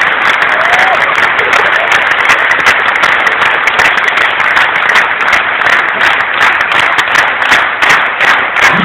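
Large audience applauding steadily, a dense unbroken clapping that neither builds nor fades.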